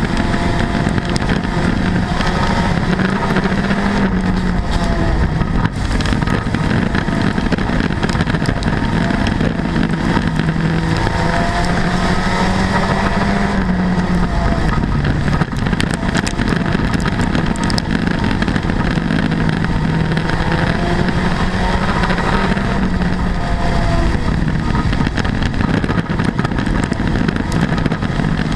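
Front-wheel-drive street stock race car's engine heard from inside the cockpit, running hard under racing load, its pitch climbing on the straights and dropping back for the corners, lap after lap, over a steady rattling of the car.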